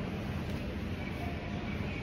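Steady low background rumble with no distinct sound standing out.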